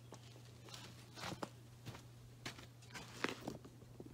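Faint footsteps and scattered light clicks over a low steady hum.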